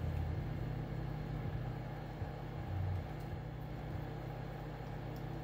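A steady low hum, with a few soft low bumps, one near the start and one about three seconds in.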